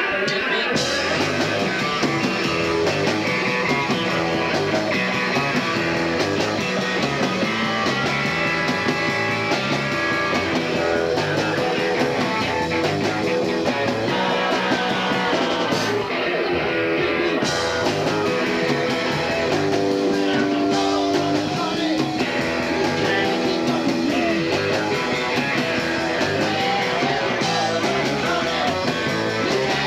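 Rock band playing live: electric guitar over a bass line that steps between notes, continuous and loud.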